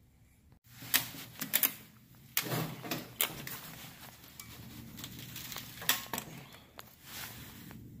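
Ratchet strap buckle being worked by hand, clicking at irregular intervals as the strap is tightened around the water heater.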